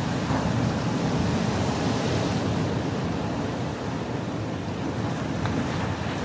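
Sea surf surging into a rocky inlet, churning and washing over the rocks in a steady rush, with some wind noise on the microphone.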